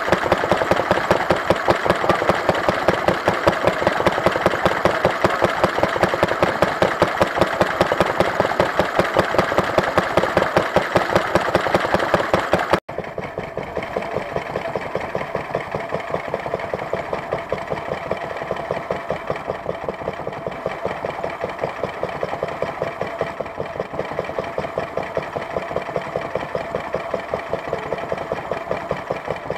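Small vintage stationary engines running steadily with an even, regular beat, driving belt-driven water pumps. About 13 seconds in the sound cuts to another, quieter engine with the same kind of steady beat.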